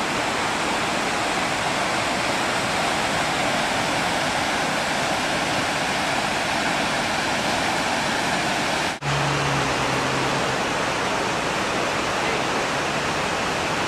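Fast-flowing whitewater river rushing over rocks: a steady, even rush of water. It breaks off for an instant about nine seconds in, then carries on.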